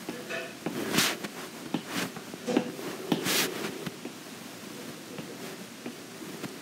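A stylus drawing lines on a tablet screen: a few brief scratchy strokes, about a second in, near 2 s and near 3.5 s, over quiet room tone.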